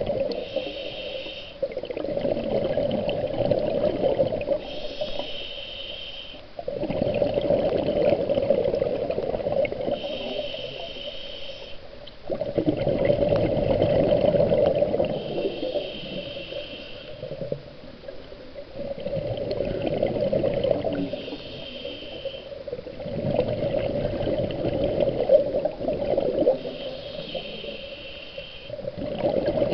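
Scuba diver breathing through a regulator underwater: a short hissing inhale alternates with a longer, louder rush of exhaled bubbles, about five breaths in a slow, even rhythm.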